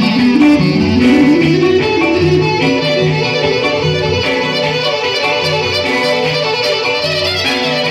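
Live Epirote folk dance music from a band: a lead melody that slides up and down over a steady, even beat.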